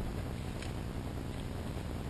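Steady low background rumble, with one faint click a little over half a second in as hands handle tape and tint film.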